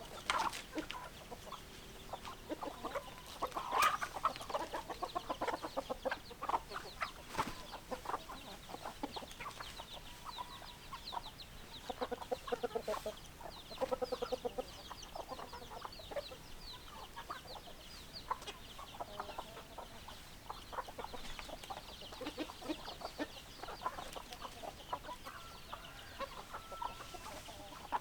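Domestic chickens clucking: a flock of hens making many short, repeated clucks and calls, with rapid high chirps among them.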